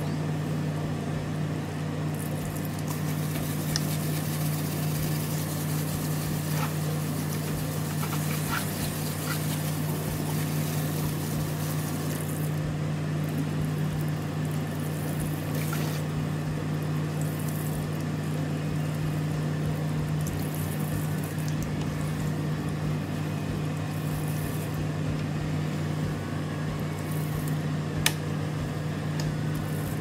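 Steady low hum with a constant hiss over it, and one sharp click near the end.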